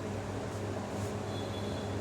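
Electric fan running: a steady low hum under an even hiss of moving air.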